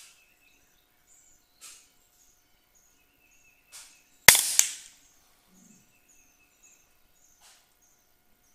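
An Air Arms LCS SK-19 .22 PCP air rifle fires once, a sharp crack a little past four seconds in. About a third of a second later comes a second crack, the pellet striking the steel target 50 yards away. Faint birdsong and a few soft clicks are heard around it.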